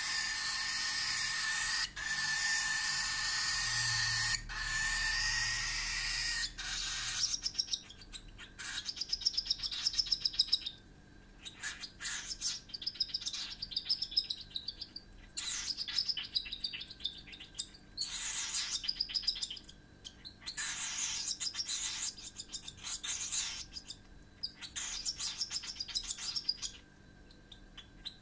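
Cockatiel chick begging while being hand-fed: a harsh, continuous begging call for about the first seven seconds, then bursts of rapid, pulsing chirps a few seconds long, over and over.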